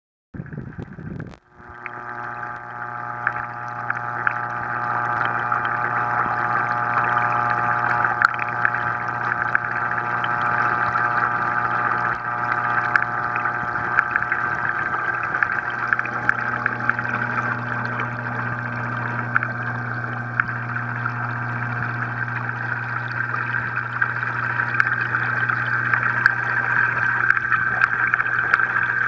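Running reef aquarium: a steady motor hum with water trickling and gurgling under it, and faint ticks scattered throughout. It settles in about a second and a half in.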